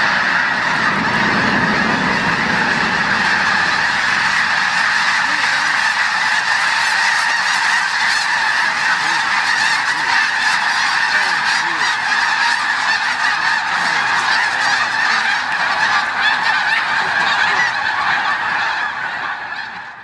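A huge flock of snow geese honking all at once: a dense, steady chorus of overlapping calls that fades out at the end.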